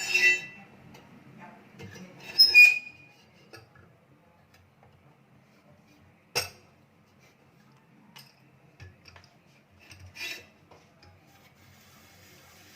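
A few separate hard clinks and knocks, as of metal parts of a spiral potato cutter being handled and set in place: two near the start, a sharp click about six seconds in, and a softer knock near the end.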